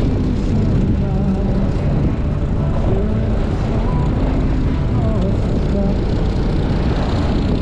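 Motorcycle engine running steadily at cruising speed, with heavy wind rush over the microphone.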